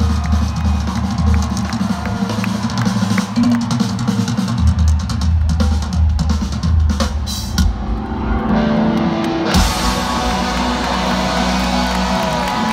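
Rock band's drum kit played hard through a stadium PA, heard from the crowd on a phone: pounding bass drum and snare with cymbals. About nine and a half seconds in, a bright wash of cymbals and full band comes in.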